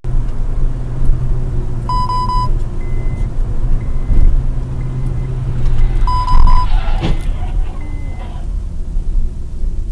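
Steady low engine and road rumble heard inside a moving car, with a short high electronic beep about two seconds in and another about six seconds in, and a brief thud around seven seconds.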